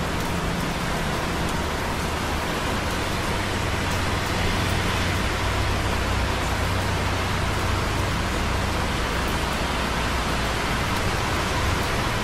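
Light rain dripping on concrete close by, over the steady hiss of busy traffic on wet roads far below. The low traffic rumble swells slightly about four seconds in.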